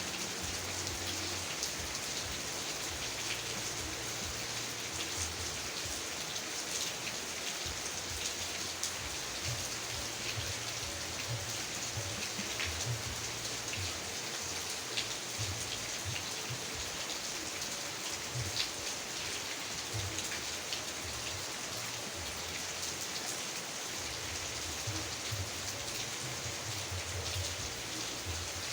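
Steady heavy rain falling, an even hiss with many single drops ticking through it.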